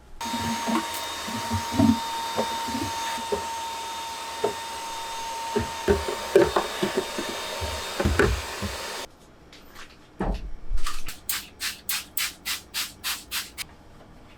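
A small electric motor runs with a steady whine for about nine seconds, over scattered knocks and rubbing, then cuts off abruptly. A thump follows, then about ten quick, even strokes near the end.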